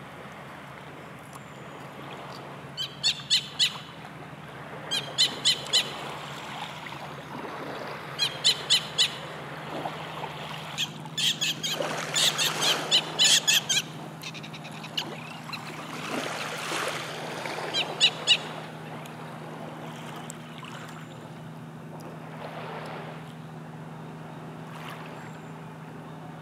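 A bird calling in short runs of three to five quick, high notes, repeated about six times, over a steady low hum.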